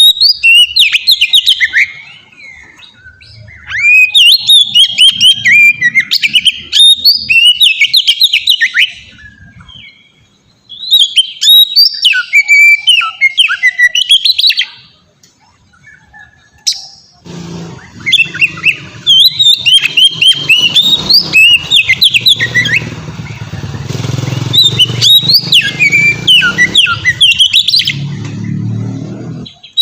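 Oriental magpie-robin (kacer) singing in its long, free-flowing 'ngeplong' style: rapid, varied whistles and chirps in phrases several seconds long, broken by short pauses. From about halfway a steady low rumble and hiss runs underneath the song.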